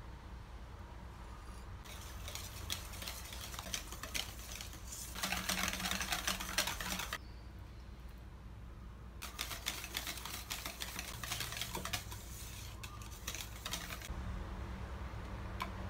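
Wire balloon whisk beating cream-cheese batter in a stainless steel bowl, its wires ticking rapidly against the bowl. It comes in two spells with a pause between, as beaten egg is whisked into the cheesecake batter.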